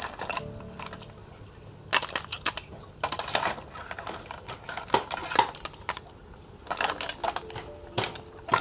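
Boiled snails being spooned out of a metal pot onto a plate: their shells click and clatter against the plate, the spoon and the pot in several quick clusters.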